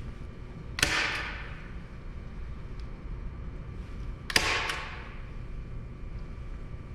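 Staple gun fired twice, driving staples through upholstery fabric into the wood, about three and a half seconds apart. Each shot is a sharp double snap with a brief hissing tail.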